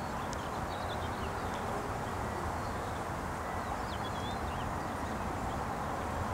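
Steady outdoor ambience: an even rushing hush, with faint, short bird chirps now and then.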